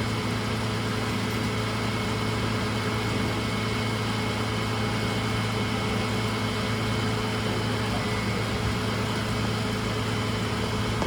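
A motor engine idling steadily with an even, unchanging hum.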